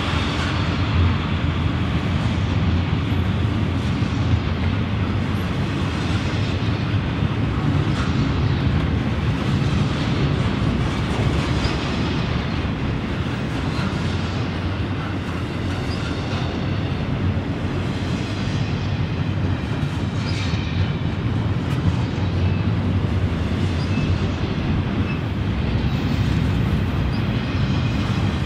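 Freight train cars rolling past on the rails: a steady rumble of steel wheels with clickety-clack over the track.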